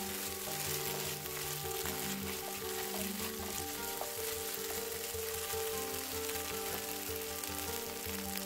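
Spice and almond paste sizzling in hot fat in a nonstick frying pan, with a wooden spatula stirring and scraping it as it is sautéed. Soft background music with slowly changing held notes plays along.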